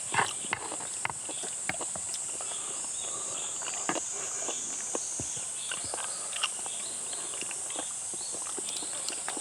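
A steady, high-pitched drone of summer insects, with scattered small clicks and knocks from eating and tableware over it. The loudest knock comes just after the start.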